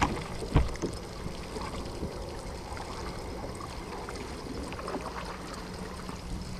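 Small waves lapping against a bass boat's hull, with two knocks on the boat deck in the first second and a faint steady hum underneath.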